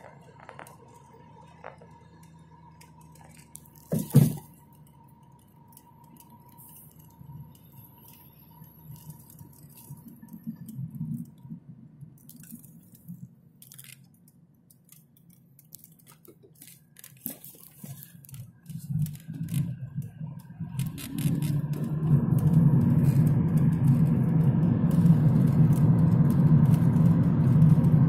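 Road noise inside a moving car: faint at first with a few small clicks and crackles and one sharp knock about four seconds in, then much louder and steadier over the last several seconds.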